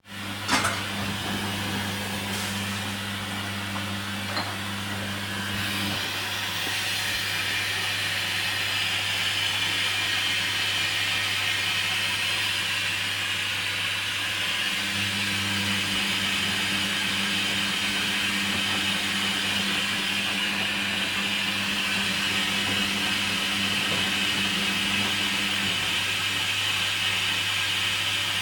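Hoover Dynamic washing machine filling with water for the final rinse: a steady hiss of water rushing in over a low electrical hum, after a click at the start.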